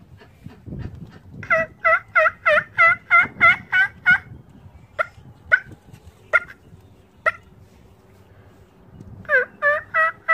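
Hen turkey yelping imitated on a mouth diaphragm turkey call: a fast run of about nine yelps, then four spaced single yelps, then another quick run of yelps starting near the end.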